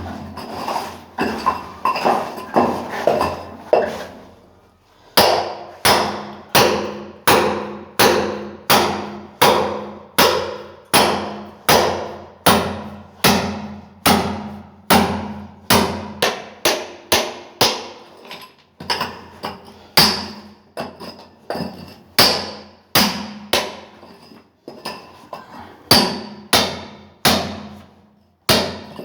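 Repeated hammer blows breaking concrete by hand, each with a short metallic ring. Quick, lighter strikes in the first few seconds, then a steady run of heavier blows about every two-thirds of a second.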